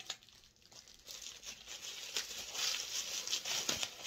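Wrapping crinkling and rustling as a glass pipe is unwrapped from its packaging, in irregular bursts that pick up about a second in.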